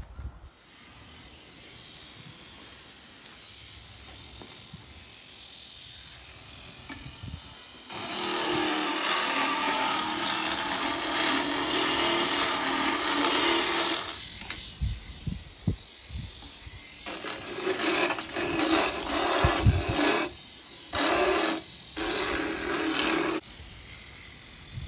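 A motorized equine dental float (power float) grinds on a horse's cheek teeth, filing down sharp enamel points. One long stretch of grinding starts about eight seconds in and lasts about six seconds, followed by several shorter bursts.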